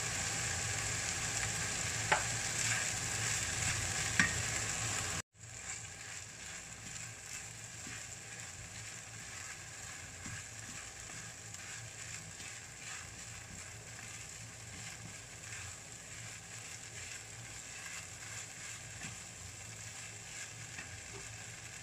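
Rice frying in a pan, a steady sizzle as a wooden spatula stirs and turns it. There are two sharp knocks, about two and four seconds in. Just after five seconds the sound drops out for an instant and comes back quieter.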